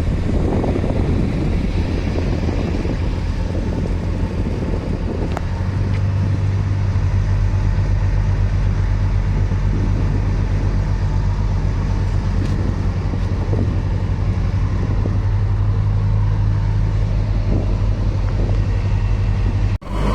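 Boat engine running steadily with a low, even hum, picking up and growing louder about six seconds in.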